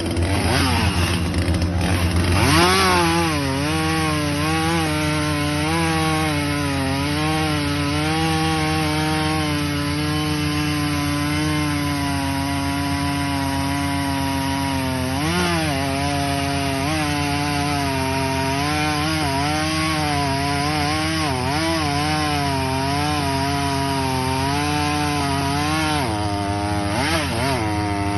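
ZimAni 450 chainsaw (a Husqvarna 450 copy) with its two-stroke engine revving up, then running at high speed through wood. The engine note dips and recovers again and again as the chain takes the load, with short sharp changes in revs about halfway through and near the end.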